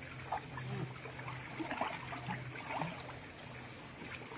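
Water gently moving and trickling in an animal enclosure's pool, with a faint steady low hum underneath and a few faint short sounds.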